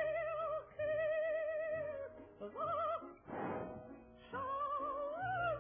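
Music with a high, wavering voice held in long notes with heavy vibrato, several of them sliding up at the start.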